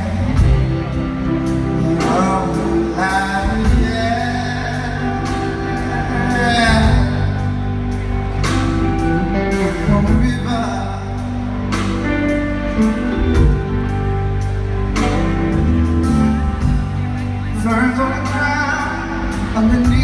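Live rock band playing: drums, bass guitar and a hollow-body electric guitar keep a steady beat, with a man singing over them in stretches.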